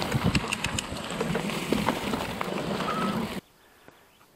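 E-mountain bike riding a trail: wind rushing on the action-camera microphone, with rattles and clicks from the bike. It cuts off suddenly about three and a half seconds in, leaving near silence.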